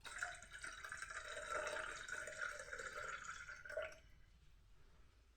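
Milk being poured in a steady stream that stops about four seconds in.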